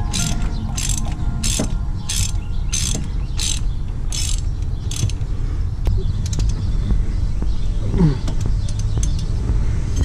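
Hand ratchet wrench turning a bolt on a brake caliper: about eight quick bursts of pawl clicks, roughly one every two-thirds of a second, stopping about five seconds in. After that come a few lighter metal clicks and a short squeak near eight seconds, over a steady low rumble.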